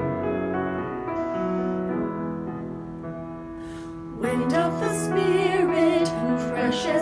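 Grand piano playing slow, sustained chords, then about four seconds in two women's voices come in, singing with vibrato over the piano accompaniment.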